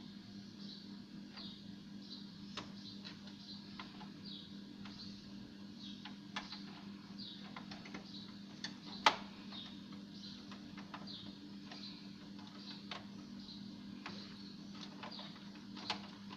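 A faint steady low hum under scattered light clicks and taps, the sharpest click about nine seconds in, with a short high falling chirp repeating roughly every three-quarters of a second.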